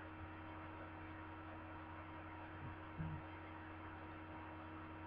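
Steady electrical hum over a faint hiss, with one short low sound about three seconds in.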